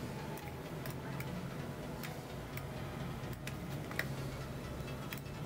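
Faint, irregularly spaced computer mouse clicks over a steady low background hum.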